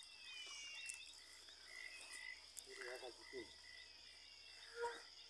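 Faint dusk chorus of insects and frogs: a steady high-pitched insect trill, with short calls repeated over it every half second or so.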